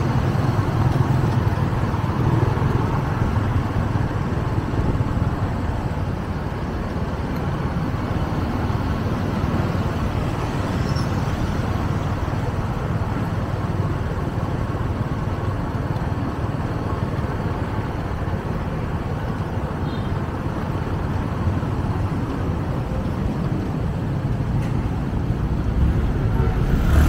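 Steady road-traffic noise heard from a moving vehicle in city traffic: a constant low rumble of engines and tyres, with no horn or sharp sound standing out.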